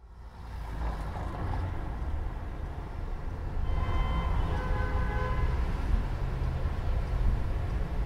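Low, steady rumble of city vehicle traffic that fades in at the start, with a few short high tones about four to five seconds in.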